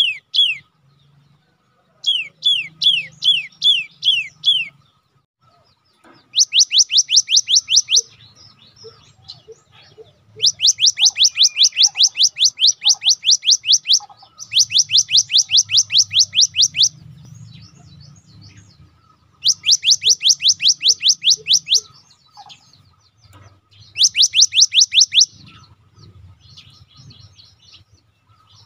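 Cinereous tit (gelatik batu) singing in bouts of sharp notes that each drop in pitch. The first bout runs at about four notes a second, and the later ones are fast trills of about eight a second, each lasting one to three seconds, with short pauses between.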